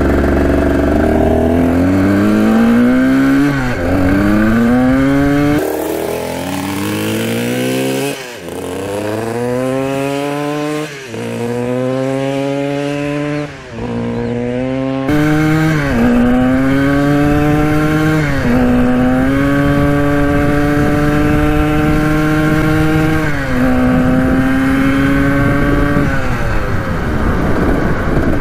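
Single-cylinder two-stroke engine of a 1980 Kawasaki KDX 175 dirt bike, running without a silencer, accelerating hard up through the gears. The engine note climbs and drops sharply at each of about six shifts in the first half, then settles to a steadier cruising pitch with a few short dips.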